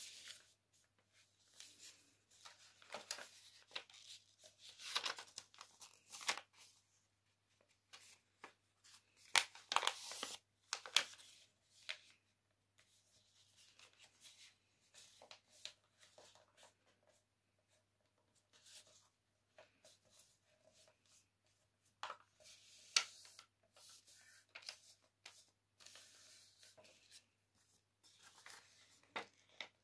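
A sheet of paper being folded and creased by hand into a paper airplane: faint, irregular rustling and crinkling, with a few sharper creasing strokes, the loudest about ten seconds in.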